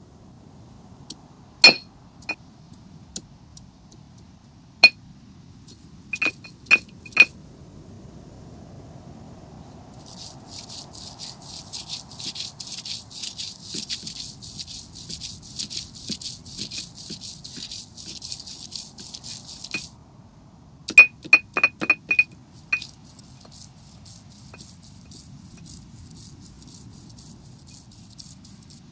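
Stone roller grinding green herb paste on a stone grinding slab: sharp clinks and knocks in short clusters, and in the middle about ten seconds of dense gritty rasping.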